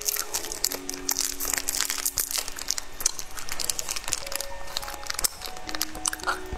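Crinkly plastic candy wrapper being torn open and unwrapped by fingers close to the microphone, a dense run of quick crackles.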